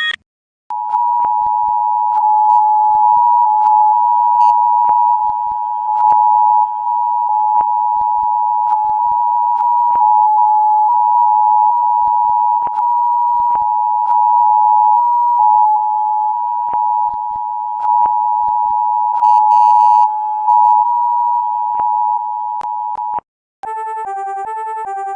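Emergency Alert System attention signal played in reverse: the steady, loud two-tone alarm, starting about a second in and cutting off near the end, with scattered clicks and a short burst of crackle about twenty seconds in. Just after it stops, a pulsing electronic beep pattern begins.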